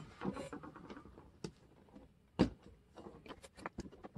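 Light clicks and taps of small plastic model-truck parts being handled and pried at, with one louder knock just past halfway.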